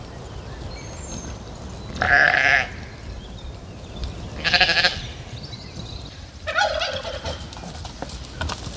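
Sheep bleating three times, a call of about half a second every two seconds or so.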